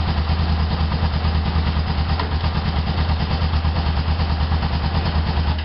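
Motorcycle engine idling steadily, with an even, rapid pulse.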